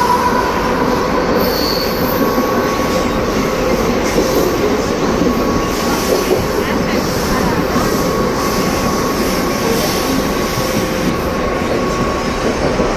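Suburban electric local train running at speed, heard inside the carriage by an open doorway: a steady loud rush and rumble of wheels on the rails, with a thin, steady wheel squeal held through most of it.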